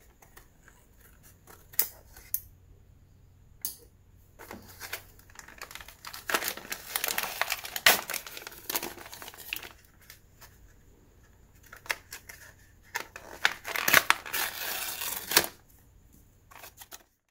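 A few sharp scissor snips into the cardboard backing of a blister pack. Then the card is torn apart by hand, with crinkling, in two long stretches.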